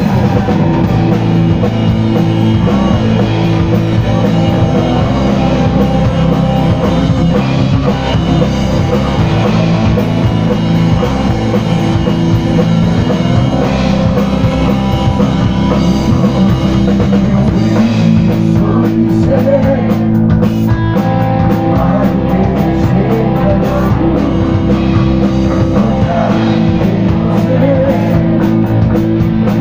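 Rock band playing live: electric guitars and a drum kit with a singer, loud and continuous.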